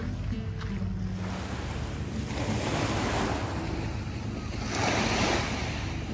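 Sea waves washing in at high tide, the wash swelling and falling back about every two seconds, with wind rumbling on the microphone. Background music fades out in the first second.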